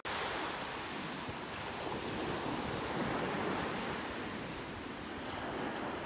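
Small waves breaking and washing up onto a sandy beach, a steady surf wash that swells a little midway through.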